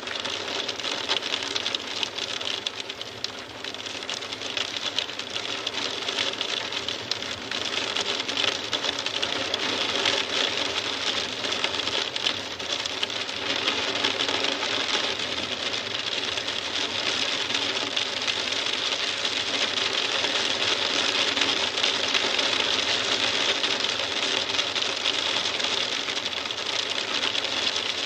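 Hail falling: a dense, continuous patter of rapid clicks as hailstones strike hard surfaces, growing a little heavier after the first few seconds.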